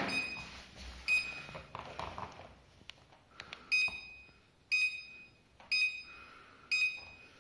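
Electronic beeps from a WalkingPad A1 Pro walking treadmill's control unit: six short, high tones, two in the first second or so and four more about a second apart in the second half.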